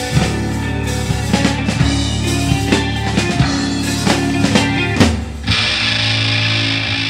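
Instrumental rock from drums, bass guitar and electric guitar with effects: drum strokes over sustained bass notes. About five and a half seconds in, the drums drop out and a sustained distorted guitar wash carries on.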